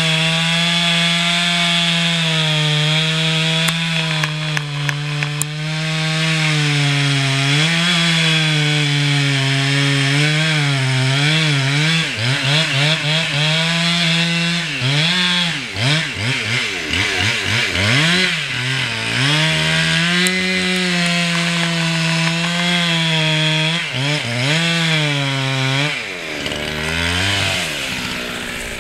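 Chainsaw running at full throttle cutting through beech wood, its pitch sagging slightly under load. In the middle and again near the end the engine is revved up and down repeatedly, its pitch swinging quickly between high and low.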